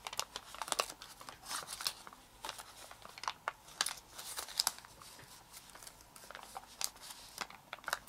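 Folded origami paper magic-flap model crinkling in short, irregular crackles as it is worked back and forth, its paper flaps flipping over in turn.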